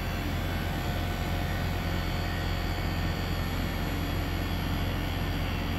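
Daikin mini-split outdoor unit running: a steady rush of the condenser fan over a low, even hum.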